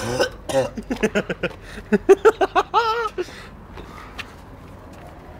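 A quick run of short, pitched vocal pulses, about five a second, ending in one wavering high note, then quiet.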